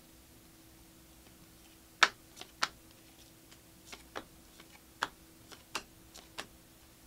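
A stack of chromium Prizm trading cards being flipped through by hand, with about a dozen sharp clicks and snaps at irregular spacing from about two seconds in, over a faint steady hum.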